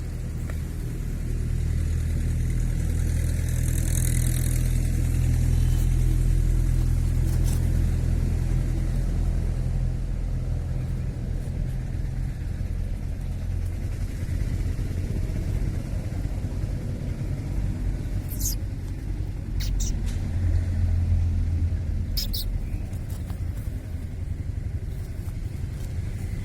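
A loud, steady low rumble that swells a few seconds in and again near the end, with a few sharp clicks.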